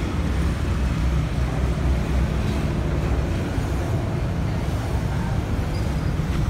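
Ryobi 1000 W portable inverter generator's small engine running steadily with an even, low hum.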